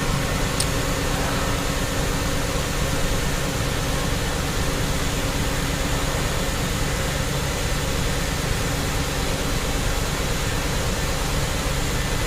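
A 2002 Audi S6's 4.2-litre V8 idling steadily, heard from inside the cabin; the idle is smooth, the misfire cured by a new ignition coil. A light click about half a second in.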